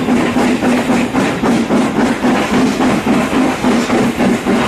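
Ex-LMS Hughes 'Crab' 2-6-0 steam locomotive under way, heard from the train just behind it. Its exhaust beats come in a steady rhythm of about three a second over the running noise of the wheels on the rails.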